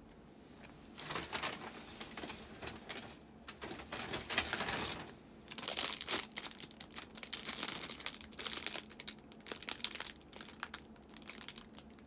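Rustling and crinkling handling noise close to the microphone. It starts about a second in and goes on irregularly, with short pauses.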